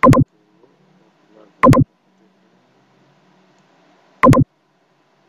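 Three loud computer mouse clicks, one at the very start, one about a second and a half later and one near four seconds in. Each is a quick press and release. Faint room noise sits between them.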